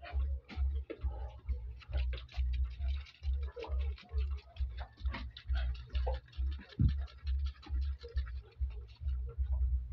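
A sow grunting low and rhythmically, about two grunts a second, the steady grunting of a sow nursing her piglets, with light clicks over it and one louder falling grunt about two-thirds of the way through.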